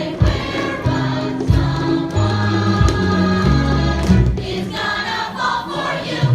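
Musical theatre song with a chorus singing over a bass line and a steady drum beat.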